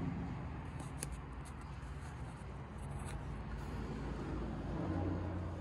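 Paper pages of a ring-binder manual being handled and turned: faint rustles and crinkles about a second in and again around three seconds, over a steady low background rumble.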